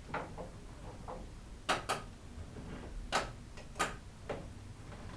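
Hunter Fanaway 48-inch retractable-blade ceiling fan running, giving off irregular sharp clicks and ticks. The loudest come as a close pair near two seconds in and two single clicks a little after three and four seconds.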